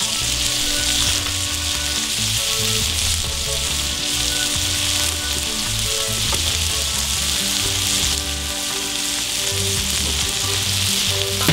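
Beef burger patties, topped with melting Muenster cheese, frying on a Cuisinart flat-top griddle: a steady hiss of sizzling fat. Faint background music plays underneath.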